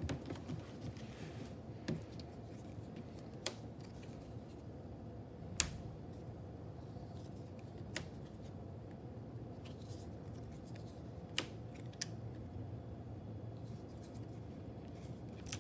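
Flat red paper fraction pieces being slid and set down on a board by hand, giving a handful of short sharp clicks spread out over a faint steady room hum.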